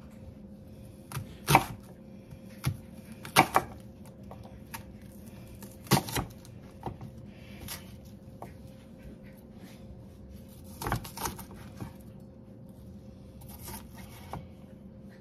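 Santoku knife chopping a white onion on a wooden cutting board: irregular sharp knocks of the blade striking the board, some single and some in quick pairs, over a faint steady hum.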